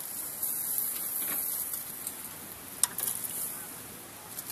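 Food sizzling on a grill, with a few sharp clicks of metal tongs against the grate, the loudest about three seconds in. The sizzle fades near the end.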